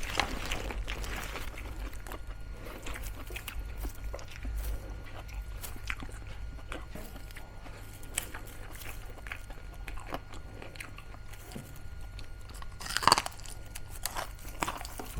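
Close-up chewing and crunching of crispy fried pork mesentery (chicharong bulaklak), a run of many small crackling crunches. A short louder vocal sound comes near the end.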